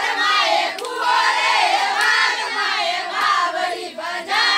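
A group of women singing together, many voices overlapping on long, wavering held notes. The singing dips briefly near the end.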